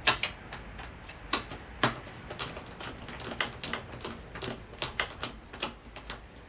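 Hand screwdriver driving screws into a foam model-plane fuselage, giving an irregular run of sharp clicks, about two a second.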